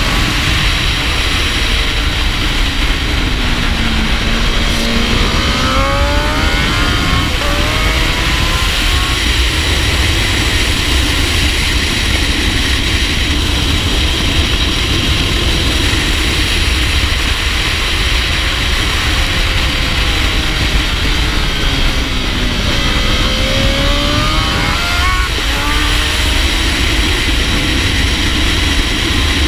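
Honda CBR1000RR Fireblade SP's inline four-cylinder engine at racing speed, under heavy wind noise on a shoulder-mounted camera. Its pitch dips and climbs back twice, with quick gear changes, as the bike brakes and accelerates through corners.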